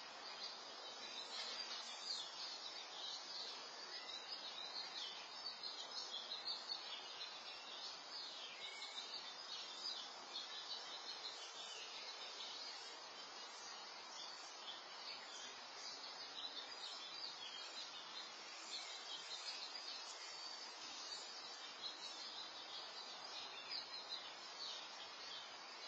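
Faint outdoor ambience through a security camera's microphone: a steady hiss with many thin, high chirps.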